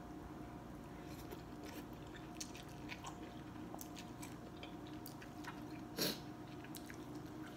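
A person eating rice noodle soup with chopsticks, chewing and slurping noodles with faint small clicks, and one brief louder noise about six seconds in.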